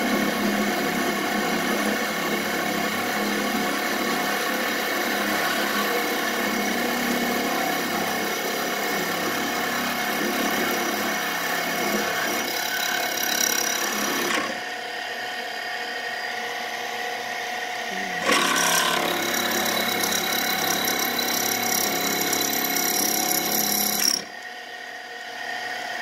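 Small benchtop metal lathe running steadily, its motor whining, while a drill bit in the tailstock chuck bores a centering divot into the end of a spinning bolt. The sound drops in level about halfway through, and again near the end, with a brief louder scrape of the bit cutting just after the middle.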